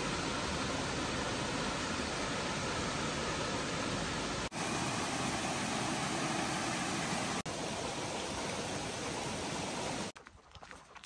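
Steady rushing of flowing water, an even, full roar broken by two brief dropouts and cutting off suddenly near the end.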